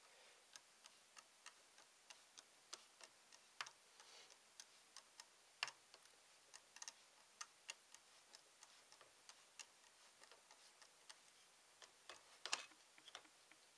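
A screwdriver turning the retaining screw inside an AR-15 pistol grip: a run of faint, light clicks about two a second, with a few louder ones.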